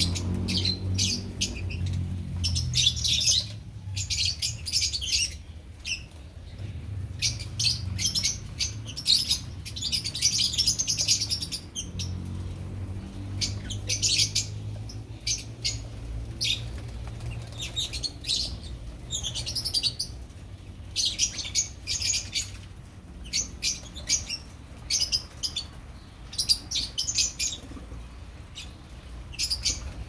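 A flock of lovebirds, Fischer's and blue opaline, chattering in dense bursts of shrill high chirps with short lulls between, and wings flapping now and then as birds fly about the cage. A low steady hum runs underneath.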